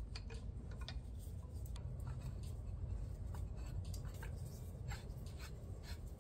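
Irregular small metal clicks and scrapes from a pipe wrench turning a threaded fitting onto a galvanized steel pipe nipple, over a steady low rumble.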